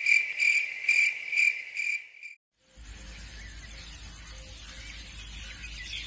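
Crickets chirping, a high steady trill pulsing about twice a second that cuts off suddenly after about two seconds. After a brief silence comes a quieter, steady outdoor hiss with a low rumble.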